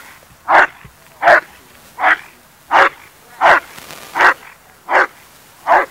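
A dog barking over and over at an even pace, about eight loud barks spaced roughly 0.7 seconds apart.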